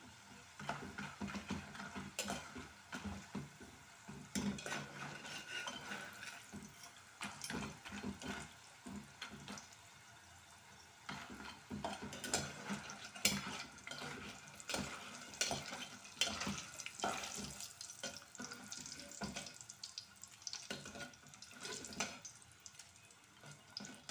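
Raw nendran banana slices frying in oil in an aluminium pot, stirred and scooped with a slotted steel spoon and a wire-mesh spider strainer. Irregular metal scrapes and clinks against the pot sound over a faint sizzle of the frying oil.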